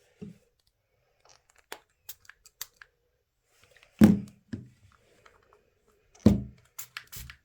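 Prying tools and a phone handled during removal of a Galaxy Note 5's glued back glass: scattered small clicks and ticks, and two heavier knocks about four and six seconds in.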